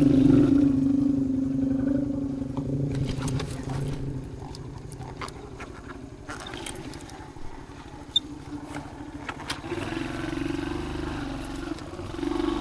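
Trail motorcycle engine running while being ridden. The engine note eases off about three seconds in and runs low and uneven for several seconds, with a single sharp knock about eight seconds in, then picks up again near the end.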